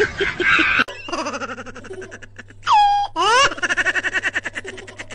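Comic dubbed laughter: a fast, high giggling laugh. About halfway through it is broken by a cartoon glide that swoops down and then back up. A low steady hum runs underneath, and another voice cuts off suddenly about a second in.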